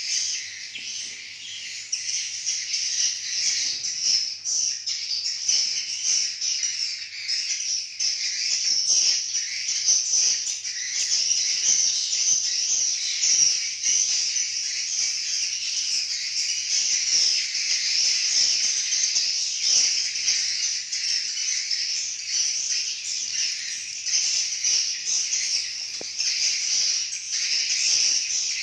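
Many swiftlets twittering in a dense, unbroken, high-pitched chatter: their roosting call at night.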